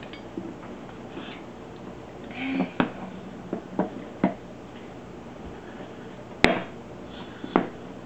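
Metal spoons knocking and clattering against the plastic inner panel of an open dishwasher door: about five sharp clacks spread through the middle and latter part, the loudest about six and a half seconds in.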